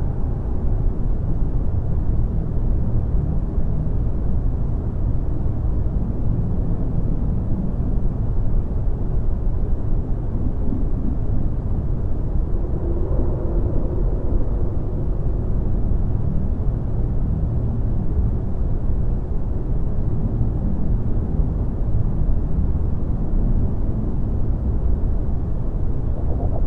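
Steady deep rumbling noise, a dark ambient sound bed, with a faint hum swelling briefly about halfway through.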